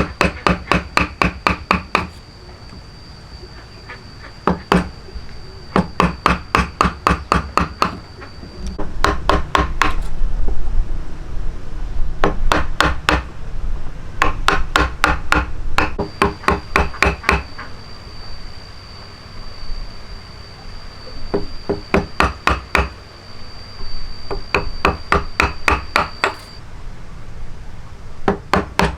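Hand hammering on wood: quick runs of sharp, ringing taps, several a second, with pauses between the runs. A thin steady high tone sounds behind them for long stretches.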